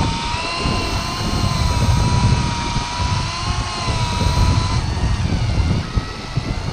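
Piscifun Kraken electric deep-drop reel's motor whining steadily as it winds in line with a fish on, its pitch shifting about five seconds in. A low rumble of wind on the microphone runs underneath.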